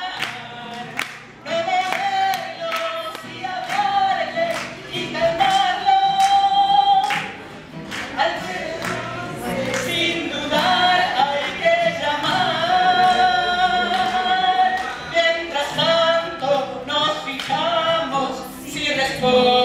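Several voices singing a song together in long held notes, over sharp, regular percussive beats.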